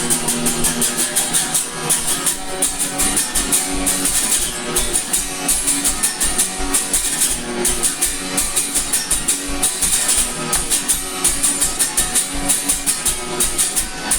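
Indie rock band music without vocals: guitar over a steady, fast drum beat with a ticking hi-hat.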